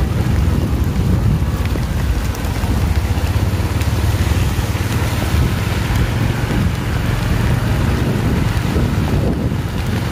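Strong wind buffeting the microphone in a loud, steady low rumble, over the hiss of heavy rain.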